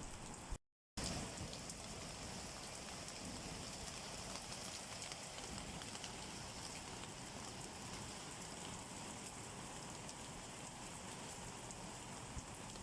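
Steady rain falling, a constant hiss with individual drops audible in it. It cuts out to total silence for about half a second just under a second in, then resumes.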